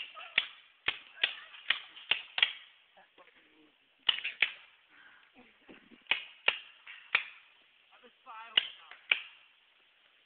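Paintball markers firing in quick strings of sharp pops, roughly two or three a second, with pauses between the strings. A voice is heard briefly about eight seconds in.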